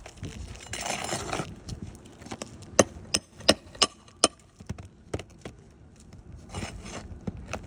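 Hand tools working on asphalt roof shingles: a scraping rasp about a second in, then a quick run of about six sharp knocks or taps, and another short scrape near the end.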